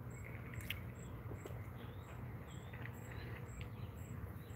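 An insect chirping steadily, about two short high chirps a second.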